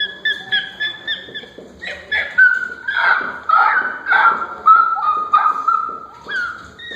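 A man making weird high-pitched animal noises with his voice: a rapid string of short yelping, squealing cries, about two a second, some falling in pitch, loudest around the middle.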